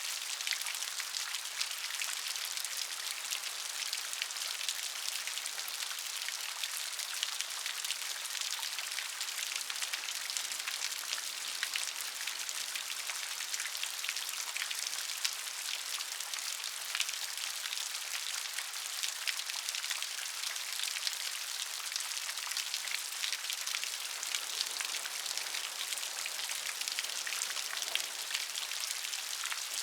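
Steady rain falling, a dense patter of many small drops with no let-up.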